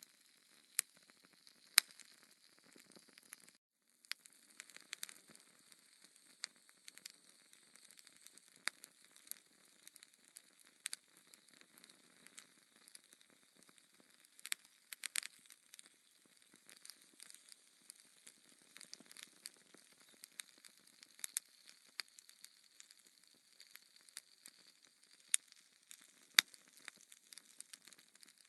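Burning logs crackling in a wood fire: sharp pops at irregular moments over a faint steady hiss. The sound cuts out for a moment about three and a half seconds in.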